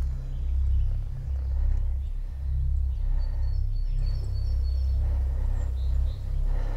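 A steady, loud low rumble, with a few faint high bird chirps about three to four seconds in.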